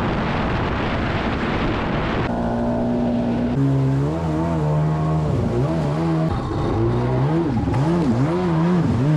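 Jet ski engine running, revved up and down over and over after a steady spell. It opens on about two seconds of loud rushing noise.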